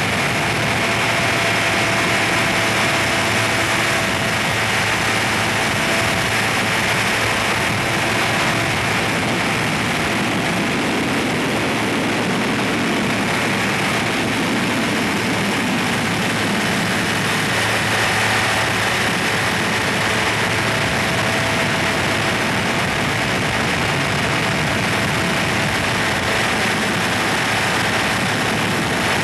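Microlight trike in steady flight: its engine and pusher propeller running at a constant setting, mixed with the rush of air past the airframe.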